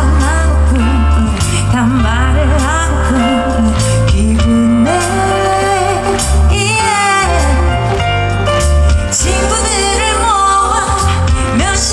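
A woman singing a pop song live over instrumental accompaniment with heavy bass, amplified through a concert sound system. Her held notes waver with vibrato.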